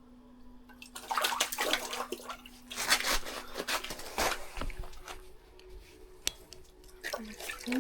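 Water splashing and sloshing irregularly in an ice-fishing hole as a hooked fish is brought up, loudest in the first half.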